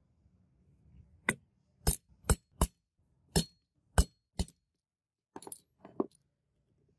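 Seven sharp metal-on-metal strikes on a steel ball doming punch as it presses a brass disc into a hex-nut die on an anvil. They come at an uneven pace, about one every half second, and are followed by a few lighter clinks of the disc being handled in the nut.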